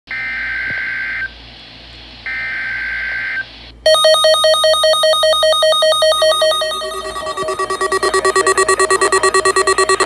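NOAA Weather Radio receivers sounding an Emergency Alert System alert: two one-second screeching data bursts of the SAME header, then a Midland weather radio's alarm beeping rapidly and loudly, joined about six seconds in by a second radio's lower-pitched pulsing alarm.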